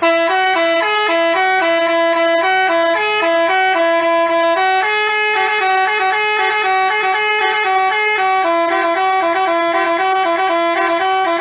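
Basuri telolet bus horn playing a fast melody of stepped horn notes. It starts abruptly and cuts off near the end.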